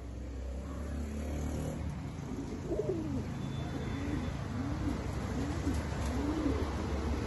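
Fancy pigeon cooing: a run of repeated low coos, each rising and falling in pitch, starting about three seconds in and coming roughly once or twice a second over a steady low hum. The cooing comes with one bird puffing up its neck and circling the other, typical of a male's courtship coo.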